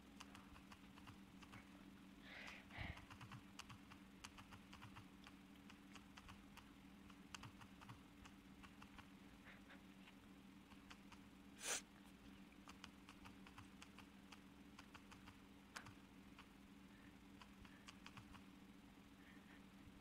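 Faint, rapid typing clicks over a low steady hum. About twelve seconds in there is one short, louder hiss-like burst.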